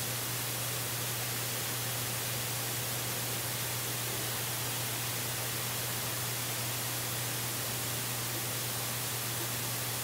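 Steady, unchanging hiss like static, with a constant low hum underneath and no distinct events.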